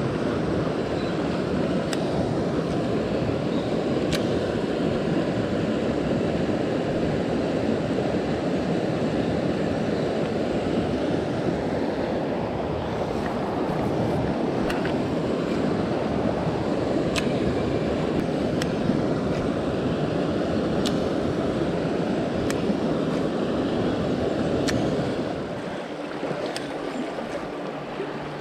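River water rushing steadily over a weir and rocks, with a few faint sharp clicks. Near the end the rush drops to a quieter flow.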